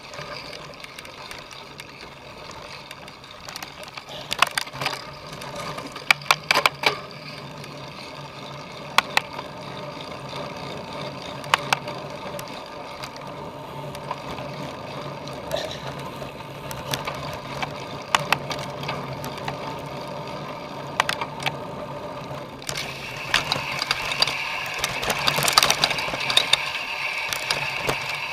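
Cyclocross bike being raced over rough ground: steady tyre and riding noise with scattered sharp clicks and rattles from the chain and frame, getting louder and busier about three-quarters of the way through.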